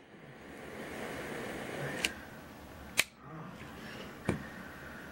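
Three sharp clicks about a second apart from a novelty motorcycle-shaped jet torch lighter being worked by hand, its flip-up lid and ignition, with a faint hiss before the first. The last click comes with a low knock as the lighter is set down.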